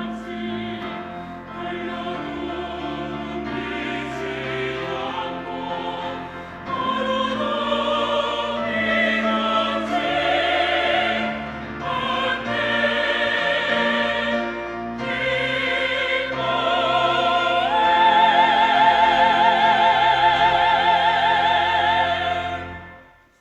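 Church choir singing an anthem and building to its close. The choir ends on a loud, long-held final chord with vibrato, which cuts off shortly before the end.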